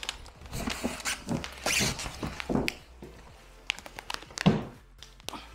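Cardboard box and packing material rustling and knocking as a small electric scooter is lifted and worked out of it, with scattered thuds and one louder thump about four and a half seconds in.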